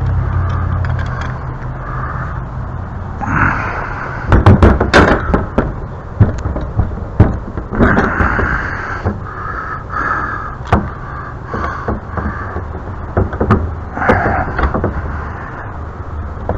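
A steady low rumble, then from about four seconds in a run of irregular clicks, knocks and scrapes from hand work on metal pipe fittings.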